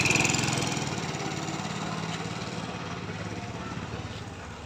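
Go-kart's small engine running under throttle as the kart pulls away, growing steadily fainter as it moves off around the track.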